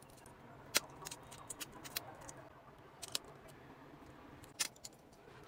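Irregular sharp plastic clicks and taps, a few louder than the rest, as a plastic syringe is pressed against a clear plastic palette and pushes coloured crystal granules into its compartments.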